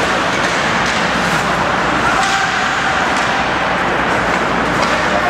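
Ice hockey arena sound during play: a steady wash of rink noise from skating players and the echoing hall, with a few faint sharp clicks of sticks or puck.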